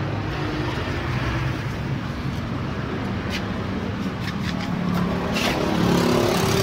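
A motor vehicle engine running steadily, getting a little louder about five seconds in, with a few light knocks and rustles.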